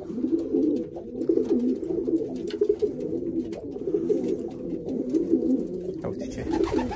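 Racing pigeons cooing in a loft, many birds at once, making a continuous low, throbbing chorus of overlapping coos.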